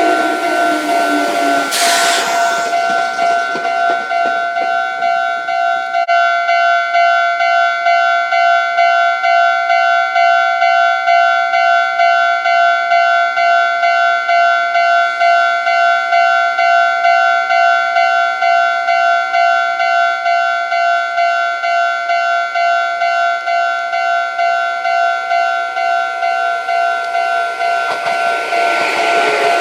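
Japanese railway level-crossing warning bell ringing steadily in an even, repeating two-tone clang. Train noise fades away in the first couple of seconds, and another train is heard approaching near the end.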